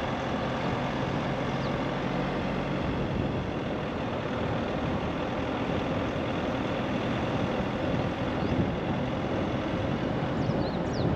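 A car driving along a road: a steady rush of road, tyre and engine noise.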